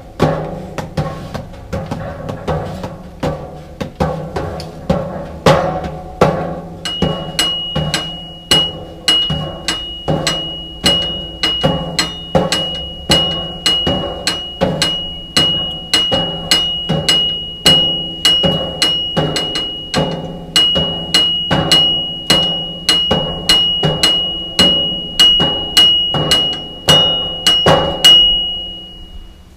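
Drum and percussion music with a steady beat of sharp hits over held pitched notes; a high steady tone joins about seven seconds in and runs on until the music stops near the end.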